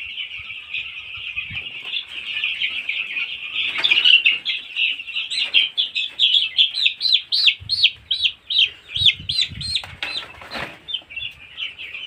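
Flock of nine-day-old broiler chicks peeping in a dense, continuous chorus. From about five seconds in, louder separate falling peeps stand out, about three a second, before they blend back into the flock.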